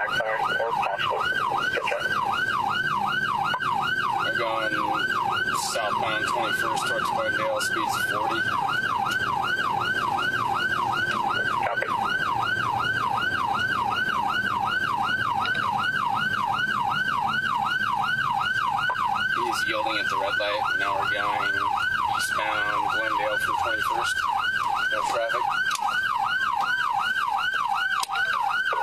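Police car siren on yelp: a fast whooping rise and fall in pitch, repeating about three times a second without a break, over engine and road noise.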